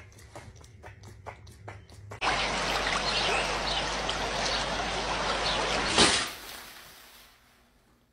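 Water bubbling and splashing as a dog blows into shallow water with its muzzle, starting suddenly about two seconds in and stopping about four seconds later.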